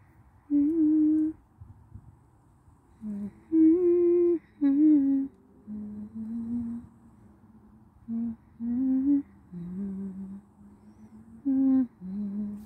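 A person humming a slow tune in short phrases of held notes, with pauses between them.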